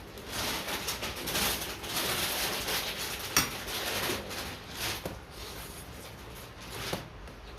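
Close-up eating sounds: irregular crunching and chewing for several seconds, with a sharp click about three seconds in, then quieter chewing.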